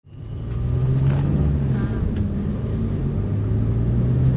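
Car driving on a city street, heard from inside the cabin: a steady low engine and road rumble that fades in over the first half second.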